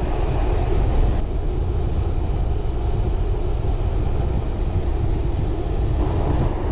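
Wind buffeting the microphone while cycling: a steady low rumble with a hiss over it.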